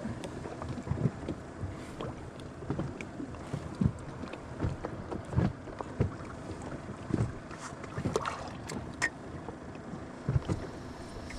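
Small waves slapping and bumping against the rubber hull of a drifting inflatable boat, with wind on the microphone. Irregular low thumps come every second or so, with a few sharp clicks near the end; no outboard is running.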